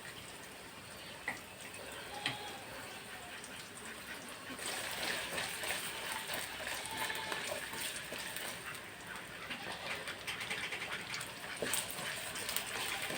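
Onions and slit green chillies frying in oil in a kadai: a faint sizzle with a couple of light clicks, then a louder, crackling sizzle from about four and a half seconds in.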